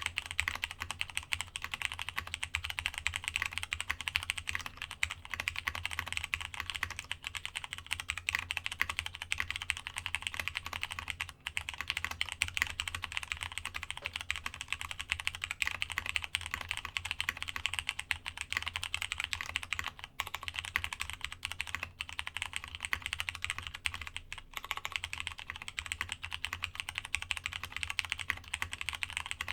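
Fast, continuous typing on a Masjewerke K-III custom mechanical keyboard: plateless Cherry MX Brown tactile switches under DCS keycaps, with the brass internal fitted. A steady low hum runs underneath.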